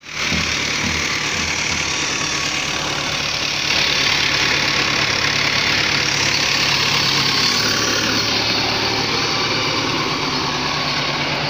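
Fiat 640 tractor's four-cylinder diesel engine running steadily and loudly while the tractor pulls a plough through soil, with a constant hiss over the engine note.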